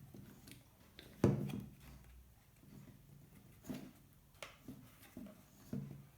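Handling noise from a plastic LED camping lamp being held and turned: a sharp knock about a second in, then a few lighter knocks and clicks later on.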